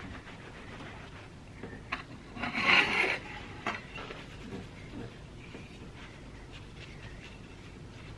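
A brief rubbing scrape on the antique brass door plate about two and a half seconds in, with a few light clicks as it is handled.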